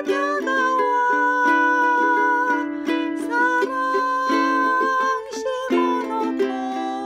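Ukulele strummed in a steady rhythm, playing chords, with a held melody line that moves in steps above them.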